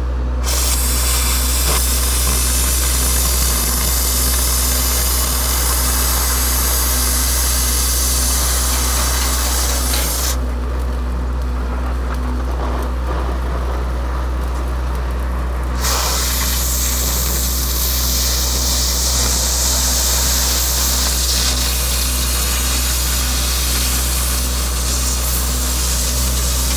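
Oxy-fuel cutting torch hissing steadily as it cuts a notch through a steel I-beam. The hiss drops away for about five seconds in the middle, then comes back. A steady low hum runs underneath.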